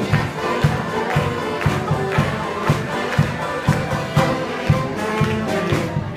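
Mummers string band playing a march: banjo, accordions and horns over a steady bass drum beat of about two a second.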